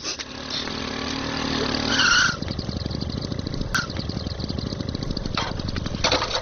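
Motorcycle engine running: it builds up for about two seconds, then settles into a fast, even idle.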